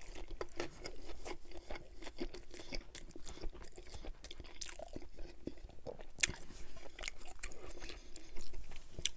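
Close-miked chewing of a bite of grilled chicken Caesar wrap: wet mouth clicks and small crunches one after another, with one sharper click about six seconds in.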